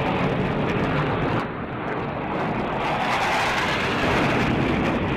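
Jet roar from a formation of F-16 fighter jets flying a display pass, a steady rushing noise that dips a little about a second and a half in and builds again near the middle.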